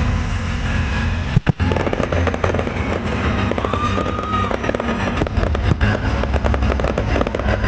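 A fireworks display: dense, rapid crackling and popping from aerial shells and spark fountains over a continuous deep rumble of bursts. There is a brief break about one and a half seconds in.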